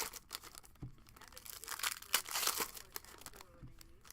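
Trading-card pack wrappers being torn open and crinkled by hand, in a few short bursts of rustling.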